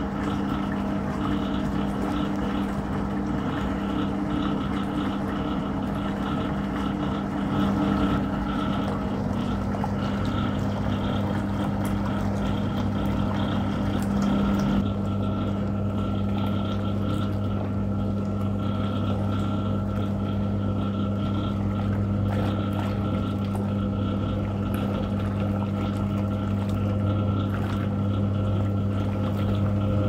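Vintage Hoover 0307 washing machine running: the pulsator's electric motor gives a steady hum while it churns the soapy water in the tub. The hum changes tone about halfway through, with the lower note growing stronger.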